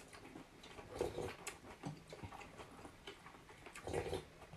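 Faint eating sounds at a table of noodle soup: chewing and sipping, with scattered light clicks of chopsticks and a spoon, and two brief louder mouth sounds, about a second in and near the end.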